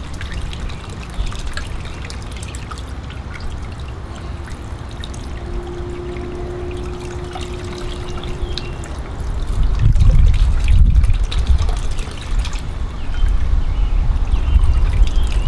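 Water from a small fountain pump trickling and splashing in a water-filled bowl while hands work at the pump under the water; it gets louder about ten seconds in.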